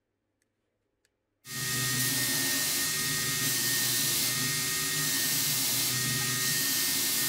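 Near silence with two faint ticks, then about a second and a half in a belt grinder comes in abruptly and runs steadily: a loud sanding hiss over a steady hum and a thin high tone, as its narrow abrasive belt shapes the knife's black micarta handle.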